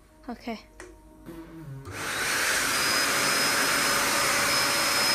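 A vacuum-cleaner-type motor switches on about two seconds in and runs steadily, with a rushing hiss and a thin high whine.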